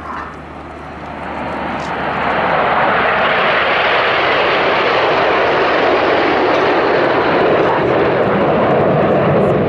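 Jet noise from the Red Arrows' nine BAE Hawk T1 jets, with their Adour turbofan engines, flying past in close formation. It swells over the first two seconds or so, then holds a loud, steady roar.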